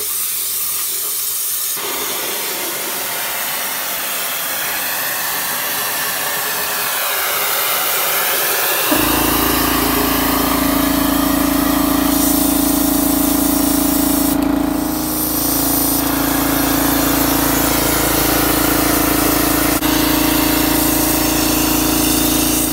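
Compressed air hissing steadily out of a small homemade rocket-engine nozzle. About nine seconds in, a motor starts and runs with a steady hum under the hiss, with the air briefly easing around fifteen seconds.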